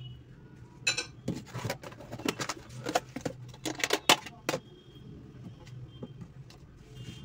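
Kitchen bowls and a steel cup being handled on a counter: a quick run of light clinks and knocks starting about a second in and thinning out after about four and a half seconds, over a low steady hum.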